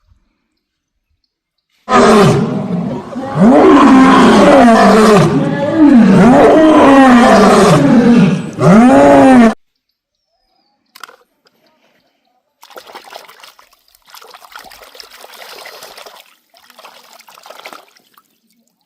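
A loud roaring call whose pitch rises and falls in several arches, lasting about seven seconds and then cutting off suddenly. A few seconds later comes a much fainter, rough noise.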